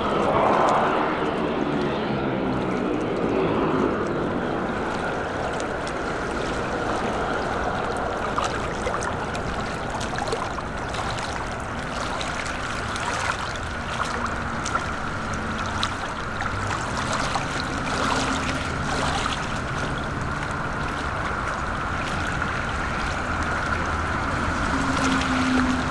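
DHC-3 Turbo Otter floatplane's PT6A turboprop running at idle: a steady high turbine whine over the propeller's hum, whose pitch slides down during the first few seconds. Water lapping and splashing underneath.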